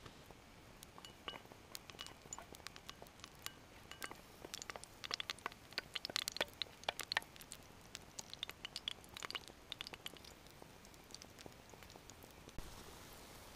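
Utensils clinking and scraping against a steel bowl and a frying pan as a thick mixture is spooned out into the pan and worked with a spatula: a run of sharp, irregular clicks and taps, busiest in the middle.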